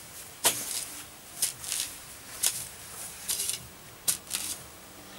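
Long-handled garden tool digging into soil: short crunching scrapes of the blade, about once a second at an irregular pace.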